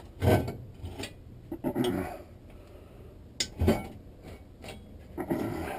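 Metal transmission parts and hand tools clanking against each other during a teardown: four separate clattering knocks, about one every second and a half.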